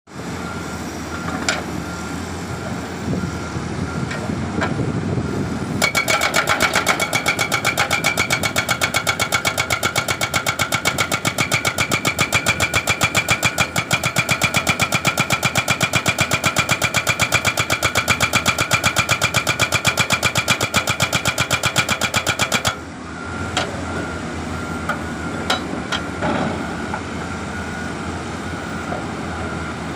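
Excavator engine running, then a LiuGong LGB140 hydraulic breaker hammering in a fast, even rhythm, starting about six seconds in and stopping abruptly some seventeen seconds later. The engine keeps running after, with a few single knocks.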